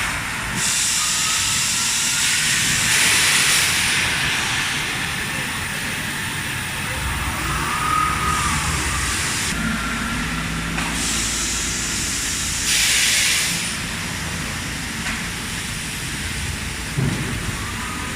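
Thermoforming machine running, with repeated hissing blasts of air lasting a second or two each and a single knock near the end.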